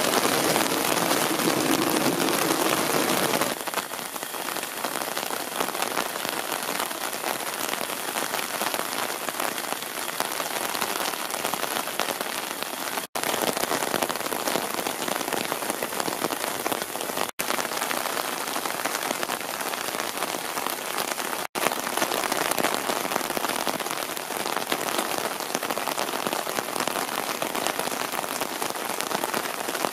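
Steady summer rain falling on wet wooden climbing frames and rock, a dense even hiss of drops. It is louder for the first few seconds and breaks off for an instant three times.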